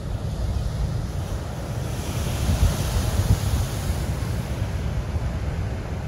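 Big Atlantic surf breaking and washing over a rocky shore, with wind buffeting the microphone in a low rumble. A surge of hissing spray and foam swells about two seconds in and fades again.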